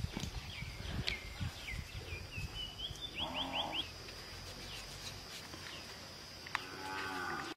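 Birds chirping in quick high calls, over a steady high-pitched drone, with two short lower-pitched animal calls, one in the middle and one near the end, and a few low knocks at the start.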